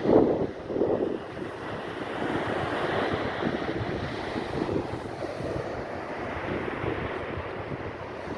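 Wind buffeting the microphone over the wash of small waves on a sandy beach, with the loudest gusts in the first second.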